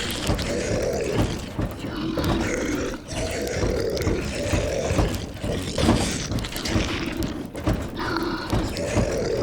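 Sound-effect zombies moaning, several voices overlapping continuously over a rough low rumbling bed.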